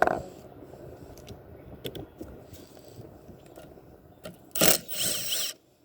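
Hand tools on a Briggs & Stratton flathead engine: a sharp metal knock at the start, a few light clicks, then a loud scraping, rattling burst about four and a half seconds in that lasts roughly a second.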